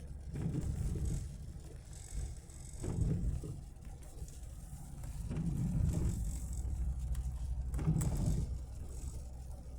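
Car driving, heard from inside the cabin: a steady low road and engine rumble that swells and eases every few seconds.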